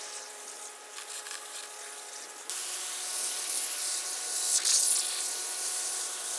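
A garden hose spray nozzle jets water hard onto dirty plastic filter media in a mesh basket, rinsing it clean, starting suddenly about two and a half seconds in. Before that the plastic media pieces clatter as they are handled.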